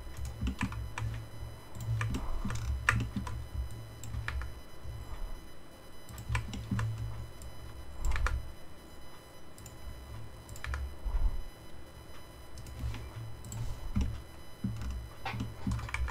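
Computer keyboard and mouse clicking in irregular single clicks as shortcuts and selections are made, over a low rumble that comes and goes.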